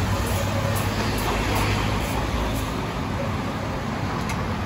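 Steady low background rumble, with a few faint light clicks of a spoon against serving bowls.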